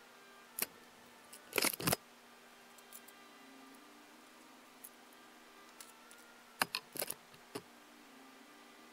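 A plywood sheet and tools being handled: a few sharp knocks and clicks, the loudest cluster about a second and a half in and another around seven seconds in, as the sheet is set down on a table saw and measured with a tape measure.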